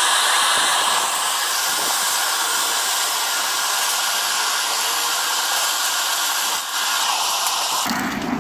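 Steady, loud rushing hiss of forced air blowing into a burning coal forge, the air blast feeding the fire.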